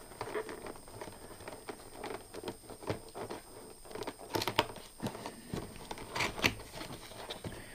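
Toy box packaging being handled and opened by hand: scattered rustling, scraping and light clicks, with a few sharper crackles about four and a half and six seconds in.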